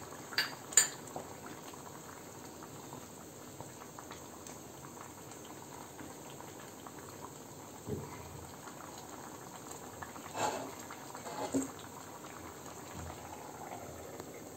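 Coconut-milk prawn curry bubbling steadily in a pan on the stove. There are two sharp clicks about a second in, and a few soft knocks of a wooden spatula stirring in the pan later on.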